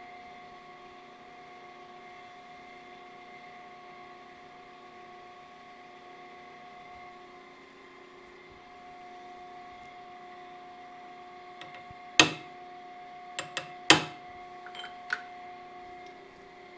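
Steady hum of shop machinery with a few fixed tones. About twelve and fourteen seconds in come two loud, sharp metal clanks, with a few lighter clicks between and after, as a steel camshaft is worked with a lever-type straightening tool.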